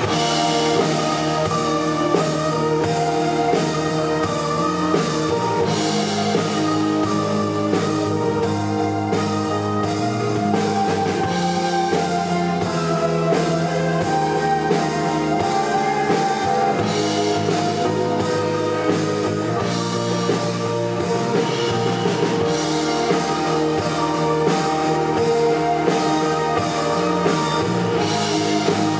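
A band playing an electronic pop song: a steady drum beat under guitar and sustained synth chords.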